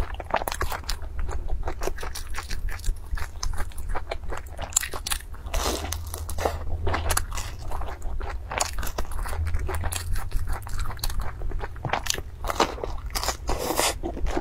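Close-miked biting and chewing of fried dough sticks (youtiao) soaked in a milky drink: a dense run of crunchy, wet mouth sounds. A steady low hum runs underneath.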